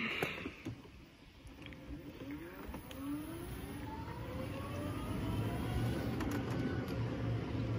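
A motor vehicle's engine getting louder, its pitch rising steadily over a few seconds, then holding as a steady low hum.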